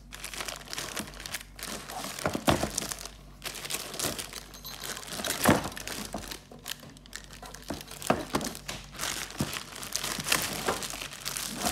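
Clear plastic bag crinkling and rustling continuously as it is handled and pulled off a boxed radio, with a few sharper, louder crackles about two and a half and five and a half seconds in.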